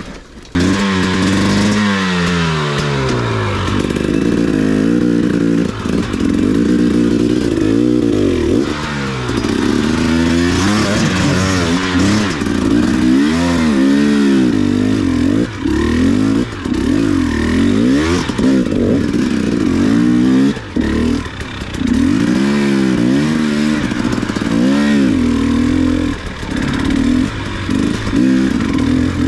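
KTM 300 XC two-stroke enduro bike engine being ridden hard, the revs rising and falling every second or two as the throttle is worked over rough ground.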